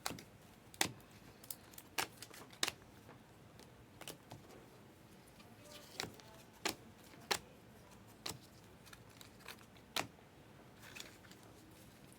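Trading cards being handled: sharp, separate clicks and snaps come at irregular intervals, roughly one a second, as the cards are flipped through and set down.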